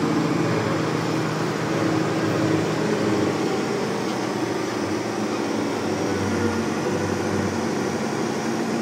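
Diesel engine of a repowered Caterpillar 637 scraper running steadily while the machine drives, heard from inside the cab as an even drone.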